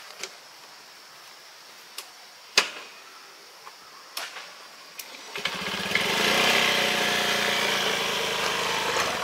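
A few light clicks and knocks, one of them sharper, then about five seconds in an engine starts up and keeps running steadily.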